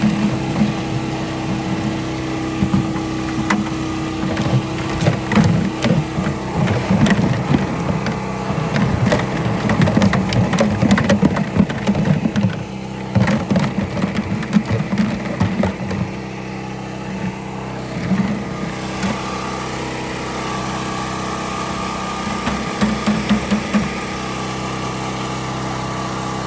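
An engine running steadily at a constant speed, with irregular louder low rumbles over it through the first two-thirds.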